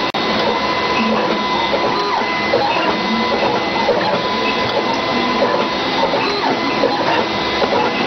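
YCM1005A automatic wire stripping and cutting machine running, a steady mechanical whirr with a thin steady whine.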